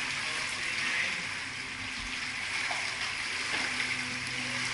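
Pool water splashing and lapping steadily as adults wade and move babies through a small swimming pool.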